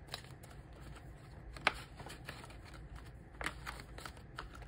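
Paper banknotes rustling as a stack of cash is handled and slid into a ring binder's pocket, with two short sharp clicks, about a second and a half in and again near three and a half seconds.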